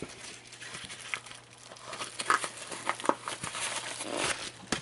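Plastic packaging crinkling and crackling as it is handled, with scattered small clicks.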